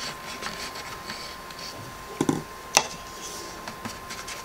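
Small paintbrush stirring and scraping acrylic paint in a plastic palette well, a light scratchy sound, with a soft knock about two seconds in and a sharp click shortly after as brushes are handled against the palette. A faint steady high tone runs underneath.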